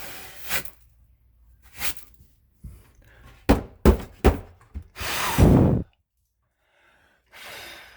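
A few sharp knocks and thuds, as of things being bumped and handled in a cramped crawl space, about three and a half to four and a half seconds in. They are followed by a louder rushing noise lasting about a second.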